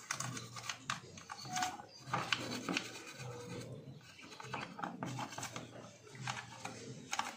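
Plastic housing of a Honda Civic EG instrument cluster being scrubbed by hand to clean off mud, making irregular scratchy rubbing with small clicks and scrapes.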